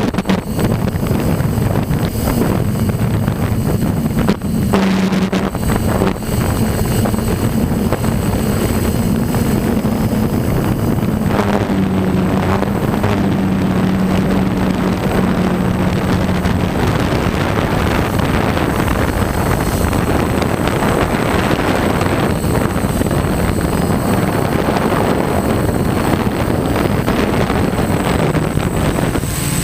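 DJI F550 hexacopter's six electric motors and 10-inch props running, heard from the camera on the craft itself, with a steady hum whose pitch shifts now and then as the motors work against gusty wind. Wind buffets the microphone throughout.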